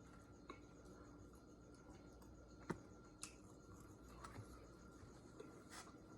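Near silence: faint, steady chirping of crickets, broken by a few small sharp clicks, the loudest about two and a half seconds in.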